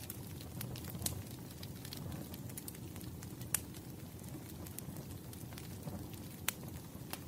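Wood fire burning with a steady low rumble and scattered crackles, three sharp pops standing out.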